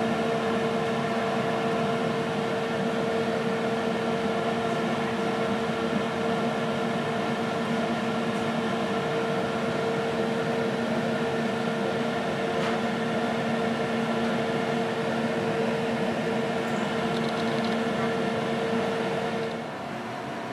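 Steady hum with several held tones over a rumble inside a passenger railcar as the train rolls slowly along the tracks. The hum cuts off shortly before the end, leaving a quieter rumble. A few faint clicks come from the camera lens refocusing.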